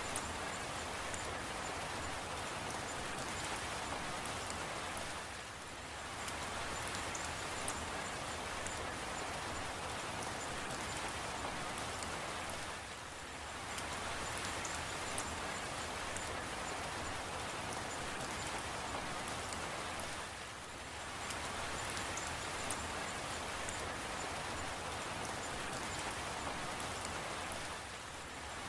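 Steady rain falling, a dense even hiss with scattered small drop ticks. The sound dips briefly about every seven and a half seconds.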